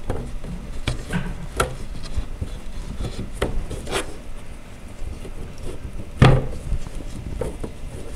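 Painted wooden end panel of a doll bunk bed being worked down onto wooden dowel pegs: scattered light wooden knocks and clicks with rubbing between them, the loudest knock about six seconds in.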